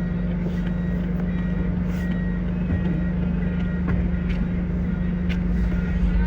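Steady engine drone of a vehicle heard from inside the car, with short high electronic beeps repeating over it.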